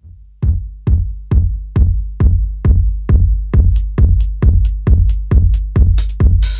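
Opening of an electronic dance track: a steady drum-machine kick drum hits about twice a second, and a pattern of high, hissy percussion hits joins it just past halfway.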